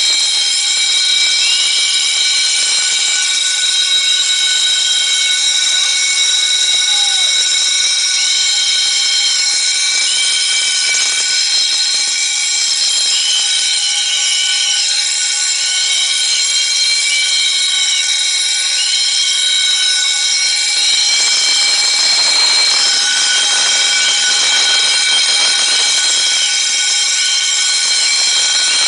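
Several electric fire-alarm bells ringing together continuously in a dense, steady ring. Short blasts of a whistle are blown over them again and again at uneven intervals.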